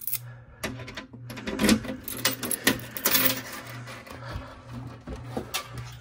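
Keys jangling and a run of sharp metallic clicks and knocks as keys are handled and the steel cabinet of a fire alarm control panel is unlocked and its door opened. A low hum pulses about twice a second underneath.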